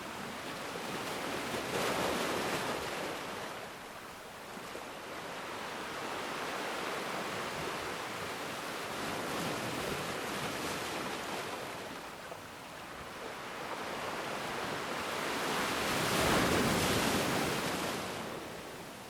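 Ocean waves breaking and washing on the shore, a steady surf hiss that swells with a wave about two seconds in and with a bigger wave near the end.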